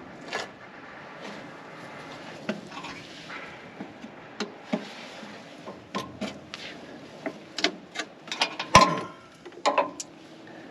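Metal lid of a rectifier case being worked loose and lifted off: a string of irregular knocks and clanks, the loudest near the end.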